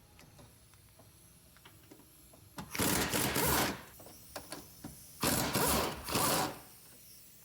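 Cordless power tool running in three short bursts, the first about a second long and two shorter ones close together near the end, backing out the engine's motor mount bolts. Faint ticks of tool handling come before it.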